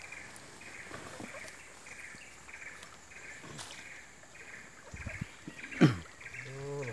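Quiet riverbank ambience with a faint high chirp repeating two or three times a second. About a second before the end a loud, sharp call falls in pitch, followed by a brief low voice.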